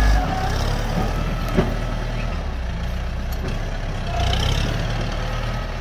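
Kubota tractor's diesel engine running steadily under load while it pulls a disc plough through brush. There is one sharp knock about one and a half seconds in.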